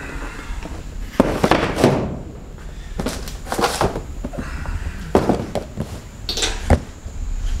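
Cardboard boxes being handled and set down: four or five bouts of scuffing, each with sharp knocks.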